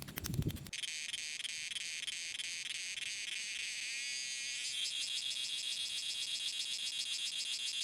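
A brief stretch of rapid clicking with low thumps, then insects chirring steadily in a high-pitched, finely pulsing chorus that grows slightly louder about halfway through.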